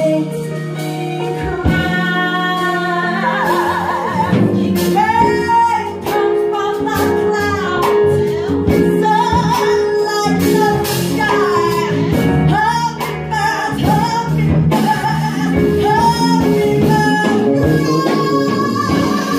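A woman singing a jazz-blues song live, backed by electric bass, keyboard and drums.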